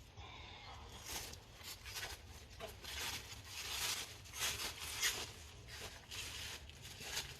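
Irregular rustling, scraping and crackling as firewood and its bag are handled to set up a bonfire, in short scratchy bursts that come thickest in the middle.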